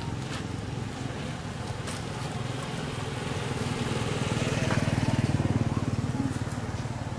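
Motorcycle engine running with a steady, fast pulsing drone, growing louder about halfway through and easing off near the end.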